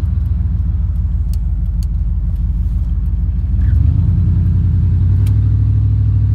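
Vehicle engine running steadily while driving, heard from inside the vehicle; about three and a half seconds in it gets louder and higher as the vehicle accelerates.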